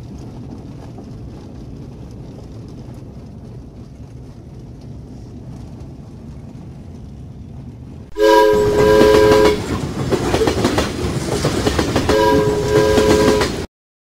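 Steady low road rumble inside a car's cabin on a gravel road, then a sudden much louder passage: a horn chord sounds twice, about a second each, with loud rushing clatter between, cutting off abruptly into silence.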